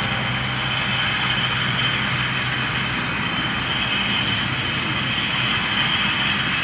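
Tractor pulling a John Deere 467 round baler, running steadily while it bales hay, with a steady low hum and a thin high whine over an even mechanical noise.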